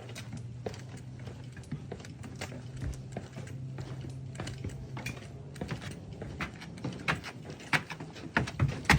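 Footsteps climbing the stairs of an observation tower: a run of irregular knocks and taps that grow louder and closer together near the end. A low steady hum lies under the first half and stops about five and a half seconds in.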